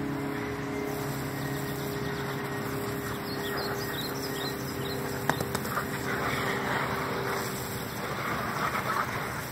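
Garden hose spraying water onto a soapy concrete slab, a steady hiss that gets heavier about six seconds in. A steady low hum runs underneath, birds chirp briefly, and there is one sharp click about halfway through.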